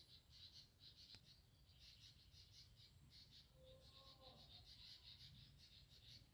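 Near silence with faint insects chirping in rapid, high-pitched pulses, and a brief faint wavering tone about four seconds in.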